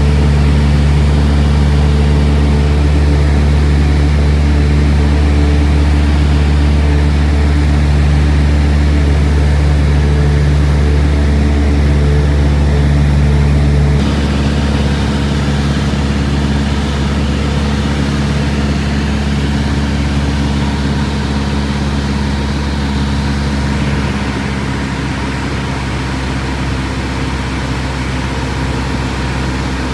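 Light aircraft's piston engine and propeller running steadily, heard from inside the cabin. The tone changes abruptly about halfway through and the level drops slightly near the end.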